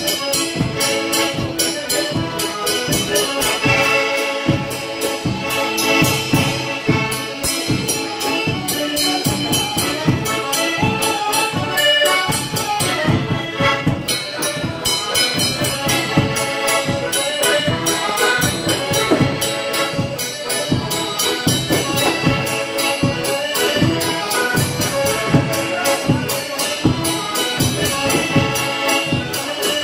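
Traditional Polish village band playing a folk tune. Fiddle and Soprani piano accordion carry the melody over a steady beat from a baraban bass drum with a cymbal mounted on it.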